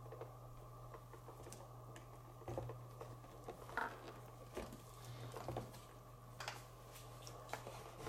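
Scattered light clicks and taps of hard plastic toy parts being handled, as the fire truck's clear plastic water tank is fitted into its compartment, over a faint steady hum.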